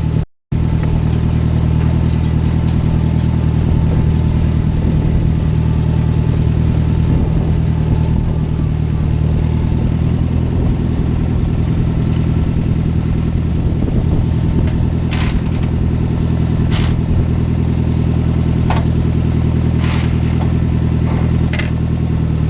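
Small farm tractor's engine running steadily under way, with a thin transmission whine over it. There is a brief cut-out just after the start, and a few sharp knocks or rattles in the second half.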